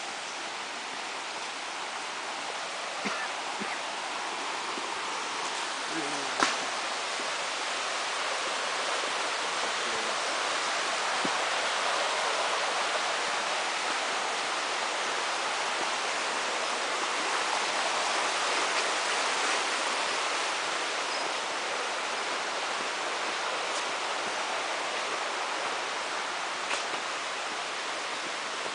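Steady rush of flowing water, growing louder toward the middle and easing a little near the end, with a few sharp clicks, the loudest about six seconds in.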